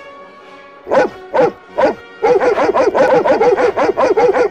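Cartoon dog barking: three single barks about a second in, then a fast run of barks at about five a second.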